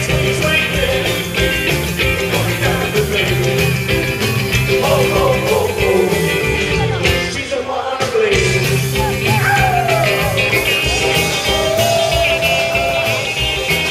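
Live rockabilly band playing: a male voice singing over electric guitars and drums, with a short break in the band about halfway through before it comes back in.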